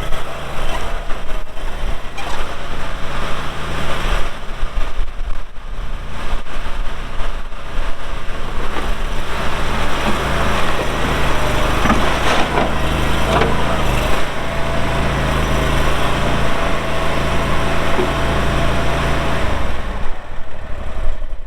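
Kohler gas engine of a 2013 Boxer 320 stand-on skid steer running as the machine is operated, with scattered knocks. A steady whine comes in about halfway, and the engine sound stops near the end.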